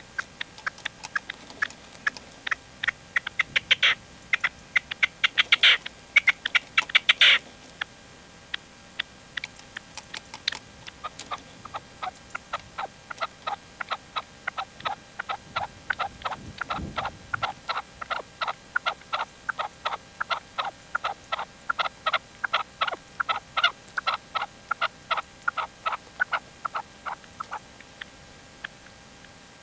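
Red-legged partridge, a caged decoy male, calling in long runs of short clipped notes. A fast, louder run of notes fills the first seven seconds, then a steady series of about three notes a second goes on and stops a couple of seconds before the end.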